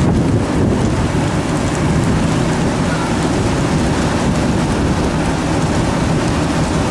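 Steady, loud noise of a fishing trawler's engine and deck machinery running, with wind on the microphone.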